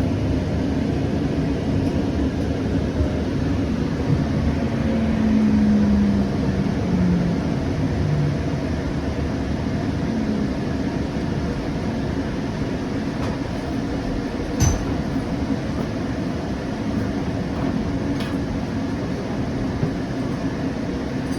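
Siemens S700 light-rail car running and slowing for a station stop: a steady rumble of wheels and running gear, with a motor tone that steps down in pitch about five seconds in and a single click about two-thirds of the way through.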